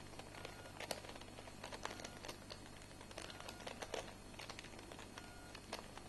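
Faint, scattered plastic clicks of a 5x5x5 Rubik's Cube being handled and turned in the hands.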